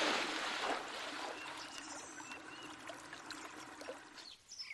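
Water splashing in a shallow forest stream as someone wades through it, loudest at first and dying away to the softer ripple of the flowing stream.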